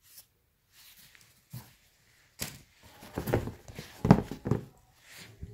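Handling noise from an Adidas Yeezy Boost 350 V2 sneaker and its insole being moved over a cardboard shoebox: a run of short rustles and soft knocks, loudest about four seconds in.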